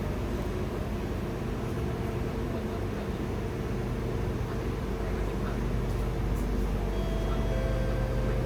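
Steady low hum inside a stationary Kawasaki–Nippon Sharyo C751B metro car, from its on-board auxiliary equipment and air-conditioning, with no knocking. A few faint steady tones come in near the end.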